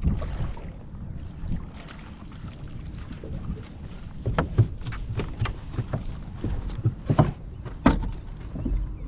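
Irregular knocks and clatter aboard a fishing boat over a low rumble. The knocks come in a cluster in the second half, the loudest about four and a half, seven and eight seconds in.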